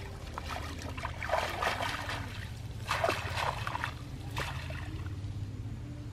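A gloved hand pulling up weeds and scrabbling in wet, muddy soil: rustling, squelching bursts, loudest about a second in and again about three seconds in, over a steady low hum.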